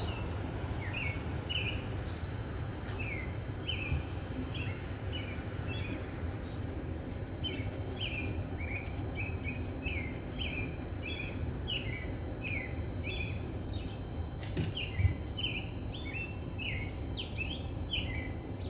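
Small birds chirping over and over, short falling chirps about twice a second, over a steady low rumble. A brief knock about three-quarters of the way through.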